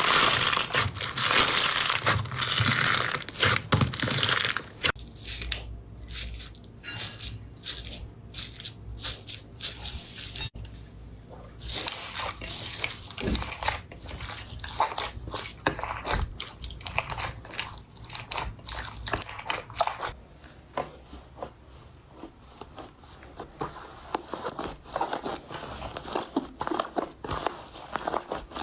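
Slime being squeezed, pressed and poked by hand, making crackling and sharp sticky clicks and pops. It is densest in the first few seconds, then goes to separate clicks with a brief lull a little past the middle.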